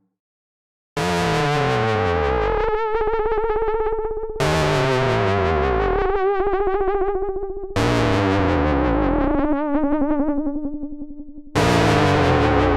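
Arturia OB-Xa V, a software emulation of the Oberheim OB-Xa polyphonic analog synthesizer, plays a preset. After a second of silence come four long held notes, each starting bright and growing duller, with a falling sweep underneath. The last note is lower than the others.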